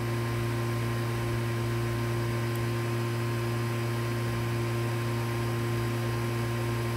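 Steady electrical mains hum with hiss: several low tones held at one level, with no change.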